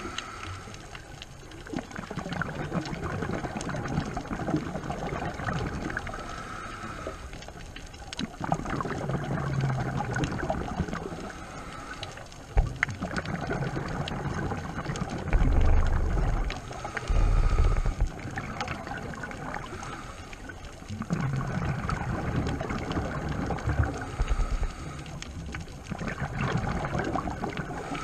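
Scuba diver breathing through a regulator underwater: a hiss on each breath in, then a gurgling rush of exhaust bubbles, repeating every several seconds, with the loudest bubble surges about halfway through.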